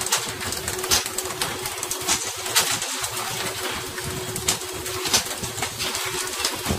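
Pole-and-line tuna fishing: a steady boat engine hum under rushing sea spray, with repeated sharp slaps as tuna are flung out of the water and land on the deck.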